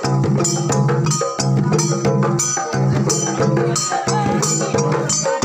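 Garo dama drums, long wooden hand drums, beaten in a fast, steady rhythm over steady held tones.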